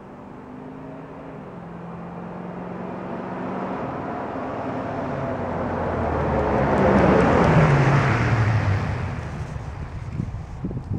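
2003 Ford F250's 5.4L V8 through a Gibson Dual Extreme dual exhaust, driving past. The engine note grows louder as the truck approaches, is loudest about seven to eight seconds in as it goes by, then falls in pitch and fades as it drives away.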